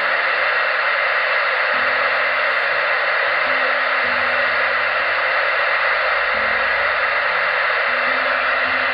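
Steady hiss of static from the speaker of an Albrecht AE 5800 CB radio, its receiver running in USB mode with no station coming through.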